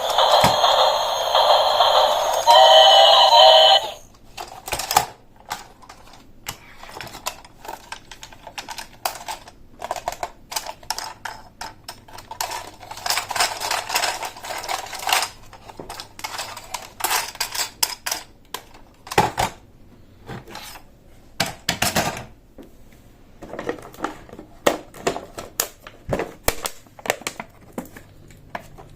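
Plastic toy pieces being unboxed and handled: a run of irregular sharp clicks, snaps and rattles. It opens with a loud pitched electronic sound that cuts off suddenly about four seconds in.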